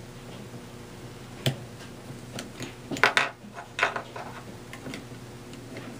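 Plastic pieces of a Rex Cube puzzle clicking and clacking as a piece is pushed back into place. There are a few sharp clicks, the loudest pair about three seconds in.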